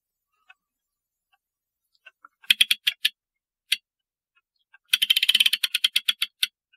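Ratchet of a clock mainspring winder clicking as the spring is worked on the arbor: a quick run of about half a dozen metallic clicks, a single click, then a faster run of a dozen or so clicks near the end.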